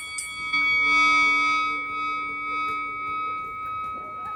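A single struck, bell-like musical tone: several pitches ring on together and slowly fade.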